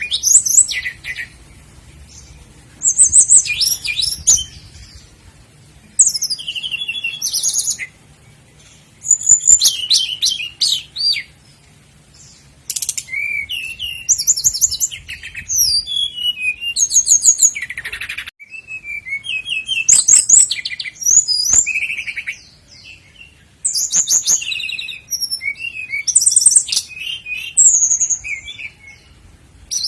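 Common nightingale (sikatan londo) singing close up: a string of varied phrases, each a second or two of rapid repeated high notes, trills and whistles, with short pauses between them.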